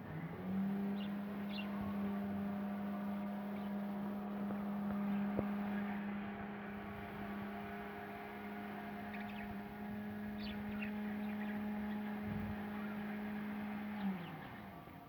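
A steady electric motor hum that rises in pitch as it starts, runs evenly for about fourteen seconds, then drops in pitch and winds down near the end.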